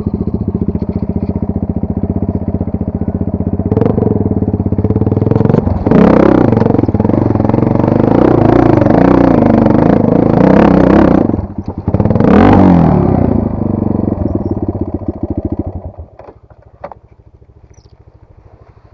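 Enduro motorcycle engine running, then revved hard several times with a brief dip in between, before the sound falls away sharply about sixteen seconds in.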